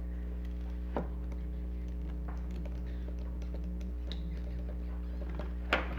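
Small clicks and taps of plastic toy parts being handled during reassembly, over a steady low hum. A sharper click comes about a second in and another near the end.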